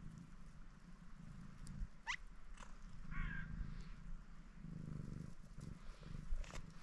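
White domestic cat purring in a low, uneven rumble. Two short high chirps cut across it: a quick rising whistle about two seconds in and a brief wavering call a second later.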